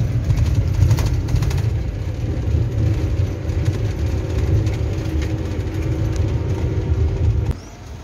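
Low, steady rumble of a vehicle driving on an unpaved dirt road, heard from inside the cab, with a cluster of knocks from bumps about a second in. It stops suddenly near the end.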